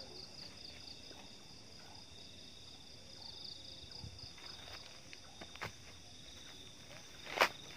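Night insects trilling in a steady, high-pitched chorus. From about halfway through, footsteps rustle through grass, with a louder crunch near the end.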